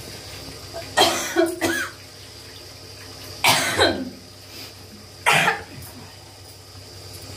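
A woman coughing hard three times, in short explosive bursts about two seconds apart.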